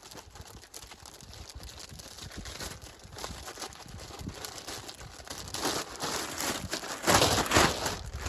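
Crinkling and rustling of material being handled, growing louder, with the loudest rustle about seven seconds in.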